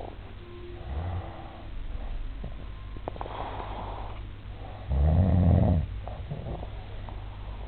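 A sleeping man snoring. There is a weaker rasping snore about a second in, breathy breathing around three seconds, and a loud, deep snore lasting about a second that starts about five seconds in.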